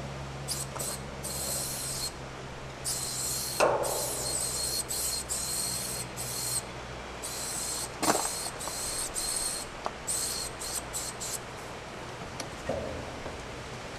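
Aerosol spray-paint can spraying in repeated stop-start bursts, some quick taps and some about a second long, as outlines are painted on a freight car; two brief knocks come about 4 and 8 seconds in, and the spraying stops near the end.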